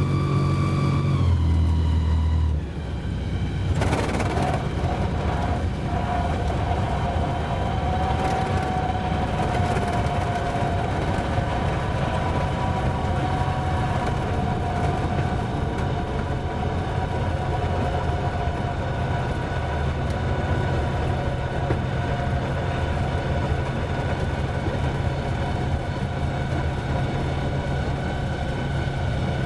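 A light aircraft's engine running steadily as it rolls along a wet sand beach after landing. The engine note drops about two and a half seconds in as it is throttled back, and a short rush of noise follows a second or so later.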